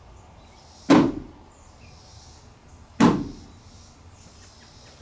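Two loud thumps on the Ford Transit van's metal body, about two seconds apart, each dying away within about half a second.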